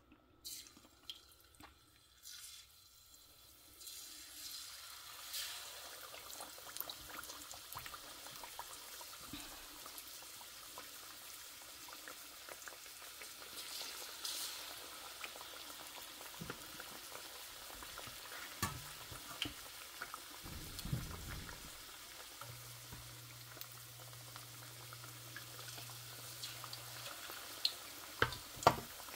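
Chicken wings frying in hot oil: a steady sizzle with scattered crackles that comes up about four seconds in, with a few sharp clicks near the end.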